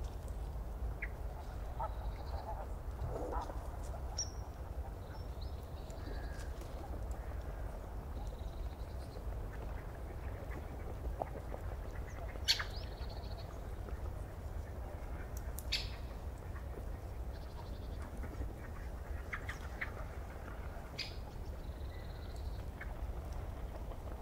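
Scissors snipping through plastic spoons, a few sharp clicks, over a steady low hum with faint high chirps in the background.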